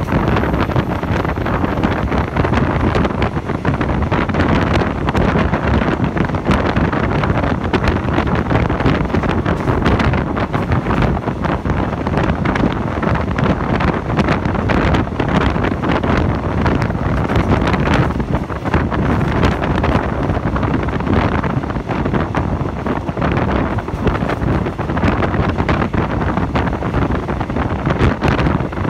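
Wind buffeting the microphone at an open window of a moving train, over the steady rumble of the train running on the rails.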